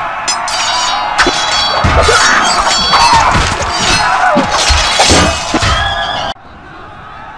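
Battle sound effects: swords clashing with metallic ringing, men shouting and yelling, and heavy thuds in a dense melee din. It cuts off suddenly about six seconds in, leaving a much quieter background.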